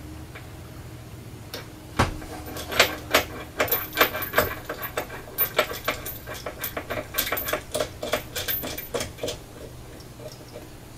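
Irregular sharp metallic clicks and clinks, a few a second, from hand tools and steel parts being worked at the head of a mini mill, beginning with the loudest click about two seconds in and stopping shortly before the end. A low steady hum runs underneath.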